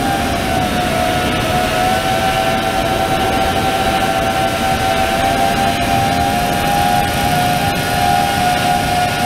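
FPV quadcopter's brushless motors and propellers whining at a steady pitch, dipping slightly about half a second in and rising a little just before two seconds, over a steady rushing noise.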